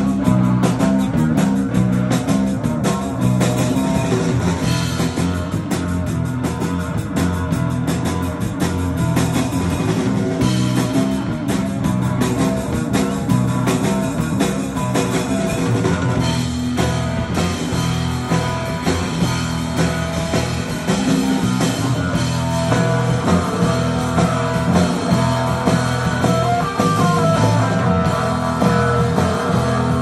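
Live surf rock band: electric guitar through an amp with a drum kit. The cymbals and drums are busiest in the first half and thin out about halfway through.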